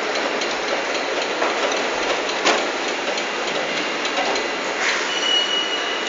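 Steady din of production-line machinery, with a few sharp metallic clanks, the loudest about two and a half seconds in, and a brief thin high tone near the end.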